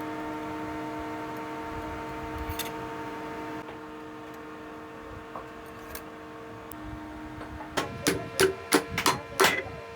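Steady hum at a few fixed pitches, then a quick run of sharp metallic clicks and knocks near the end, typical of hand tools working on an electric motor's housing during disassembly.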